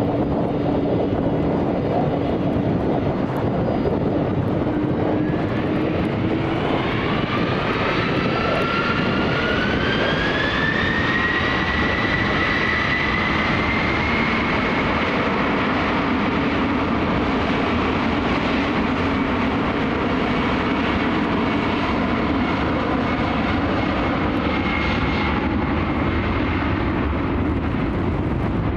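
Delta Boeing 767 jet engines running at high power with a steady heavy roar. A whine rises in pitch over several seconds and then holds, typical of the engines spooling up for the takeoff run.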